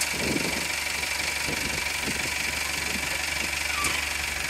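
A heavy machine's engine idling steadily, with a steady high whine over it.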